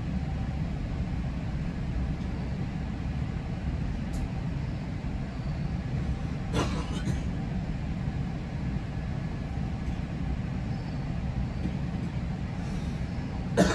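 GO Transit commuter train running along the track: a steady low rumble, with a short clatter about halfway through and a louder pair of knocks near the end.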